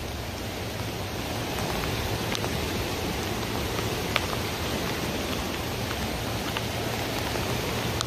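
Steady hiss of rain together with the rush of a creek running high in flood, with a few sharp ticks scattered through.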